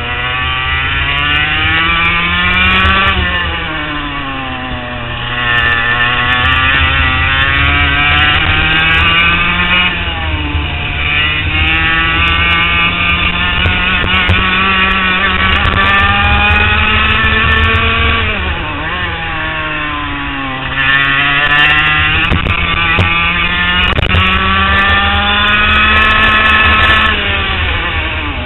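HPV 100 kart's 100cc two-stroke engine heard onboard, revving up in long climbs on the straights and dropping off sharply into the corners, about three seconds in, near ten seconds, around nineteen seconds and near the end.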